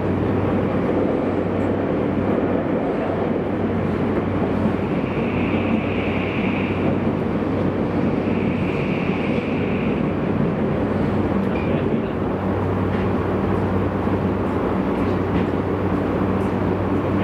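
Tokyu 5000 series electric train running through a subway tunnel, heard inside the passenger car: a steady rumble of wheels and motors with a low hum. A high whine comes and goes twice, each time for about two seconds, in the middle.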